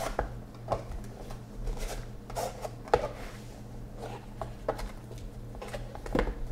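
Cardboard trading-card boxes handled and opened by hand: scattered light clicks, taps and scrapes of a box and its lid, the sharpest about three seconds in, over a steady low hum.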